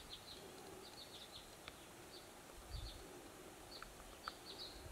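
Faint outdoor quiet with short, high chirps from a distant bird, scattered irregularly a few a second. A soft low bump comes a little over halfway, and a couple of faint clicks come near the end.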